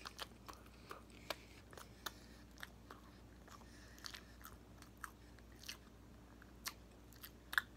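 Faint chewing of a mouthful of hamburger: soft, irregular mouth clicks, about one or two a second, a little louder near the end.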